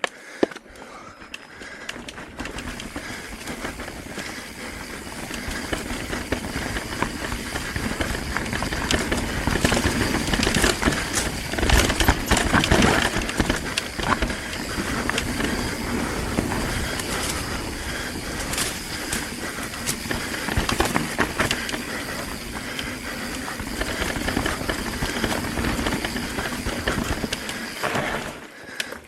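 Mountain bike riding fast down a rough, rocky trail: tyres rumbling and the bike clattering and rattling over rocks and roots, with a rush of wind. It builds after a couple of seconds, is loudest around the middle, and drops off suddenly at the very end.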